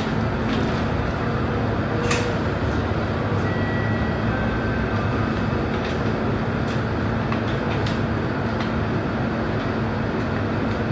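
Scania K230UB city bus's diesel engine idling steadily, heard from inside the passenger cabin, with a few sharp rattles from the bus body.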